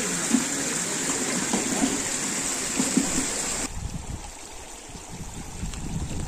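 Running water with a bright, steady rush at a fish pond. About three and a half seconds in it changes abruptly to a shallow, rocky stream flowing more quietly and lower in pitch.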